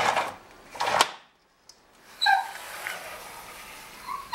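A dog yipping: a couple of short, high yelps about two seconds in, preceded by a rush of noise and a sharp click in the first second.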